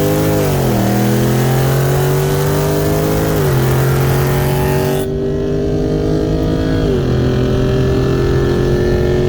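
BMW 340i's turbocharged 3.0-litre straight-six at full throttle in a roll race, heard from inside the cabin, pulling up through the gears. The engine note climbs and drops at three upshifts: about a second in, about three and a half seconds in and about seven seconds in.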